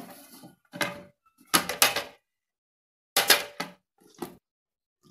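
An aluminium tin turned upside down on a plate, knocked and tapped by hand to loosen the set cornflour halwa and turn it out. A clatter at the start, then a string of sharp metallic knocks, two pairs close together.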